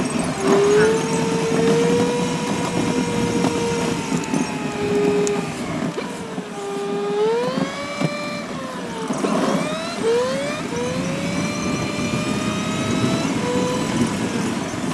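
Vehicle engine running under way, its pitch holding, then dropping and climbing again several times as the revs change.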